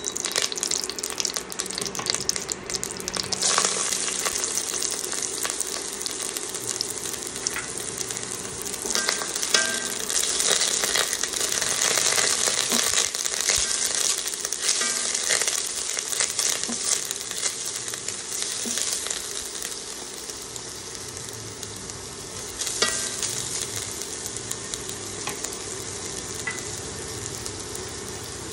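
Sliced red onion sizzling in hot oil in an enamelled cast-iron pot, the sizzle starting about three and a half seconds in as the onion goes in. A spatula stirring through it makes scattered clicks and scrapes.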